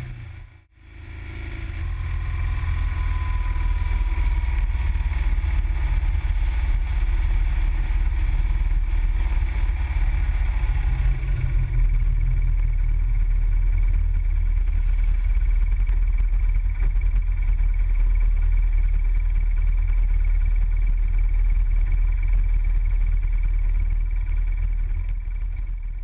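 Motorcycle riding steadily at road speed, heard from the bike itself: a loud, even low rumble of engine and wind. It drops out briefly about a second in, then runs steady again.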